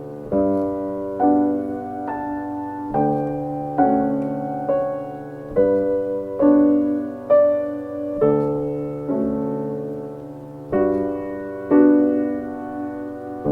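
Background piano music: slow, gentle chords and single notes, each struck and left to fade, about one a second.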